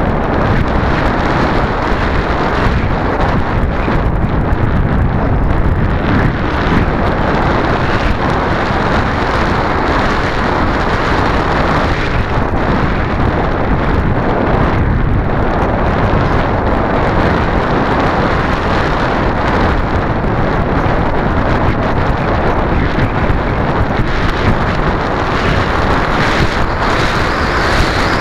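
Loud, steady wind noise rushing over the microphone of a camera riding on a ParkZone Radian RC sailplane in flight, buffeted by strong wind.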